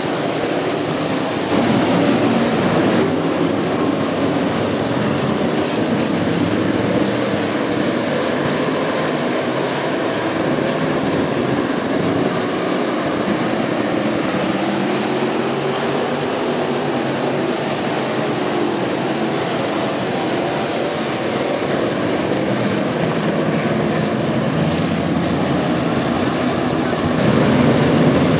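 A pack of dirt-track stock cars racing, their engines running together in a continuous loud drone that swells about a second and a half in and again near the end.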